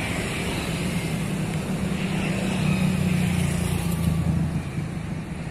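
Road traffic beside the riverbank: a motor vehicle's engine hum passing close by, growing louder through the middle and fading near the end.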